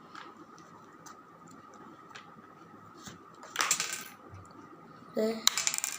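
Unpacking noise: the RC car's parts and packaging being handled, with two short clattering, clinking bursts, one about halfway through and one near the end, over a faint steady high hum.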